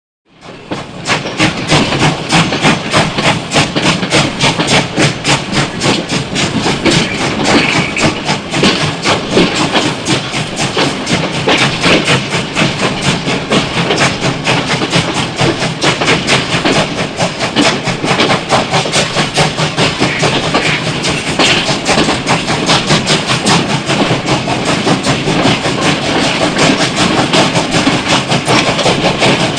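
Train running along the track, a continuous rhythmic clatter with hiss that starts from silence within the first second.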